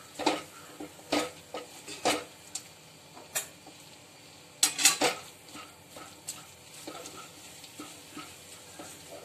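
Wooden spatula scraping and knocking against a steel kadai as grated mango and carrot are stirred and sautéed in oil. The strokes come irregularly, and the loudest cluster is about five seconds in.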